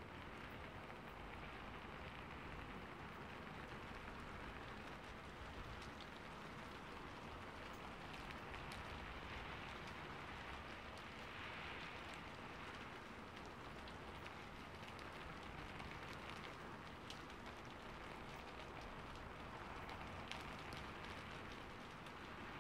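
Steady rain falling, with scattered sharp drops tapping now and then.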